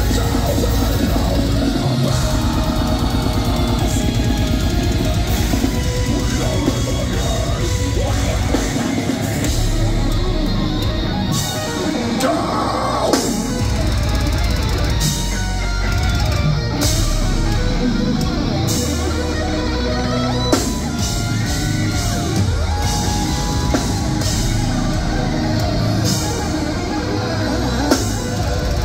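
Deathcore band playing live and loud: heavily distorted electric guitars over a pounding drum kit, without break.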